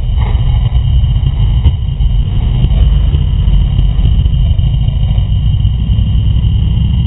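Sport motorcycle engine running under way, heard from an onboard camera, with a heavy, steady low rumble of wind buffeting on the microphone.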